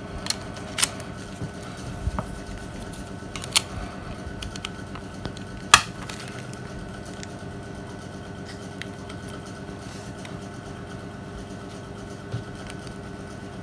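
Nokia 3110 classic being reassembled: several sharp plastic clicks as the battery is pressed in and the back cover snapped on, the loudest about six seconds in, over a steady low hum.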